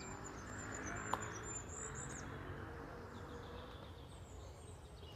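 Small birds chirping with thin, high, sliding calls, busiest in the first couple of seconds and fainter near the end, over a steady low outdoor background hum. A single sharp click about a second in.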